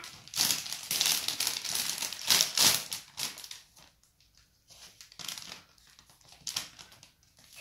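Clear plastic bag crinkling as hands rummage in it, dense and loud for the first three seconds, then a few softer rustles later on.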